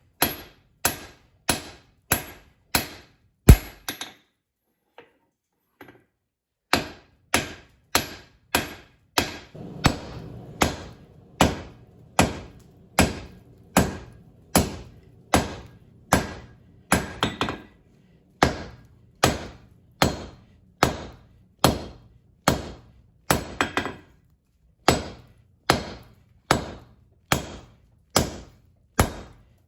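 Hand hammer striking hot steel on an anvil in a steady rhythm, about three blows every two seconds, each with a bright ring: drawing out a hexagonal jackhammer bit. The hammering stops for a couple of seconds early on, just after a loud strike, then picks up again at the same pace.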